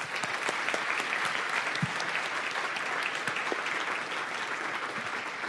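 Audience applauding steadily: a dense wash of many hands clapping.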